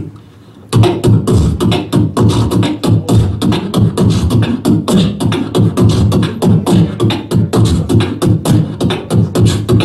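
Solo beatboxing into a handheld microphone, amplified over the club's sound system: a fast, dense rhythmic run of sharp percussive hits over a deep bass, starting just under a second in.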